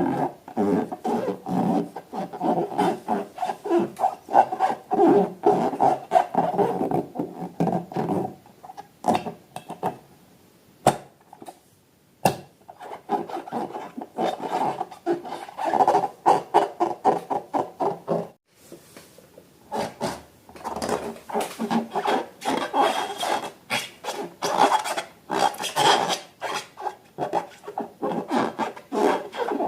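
Sticky slime being squished and mixed by hand, a rapid, irregular run of wet crackling squelches. It stops twice, near the middle and again a little later, then starts up again.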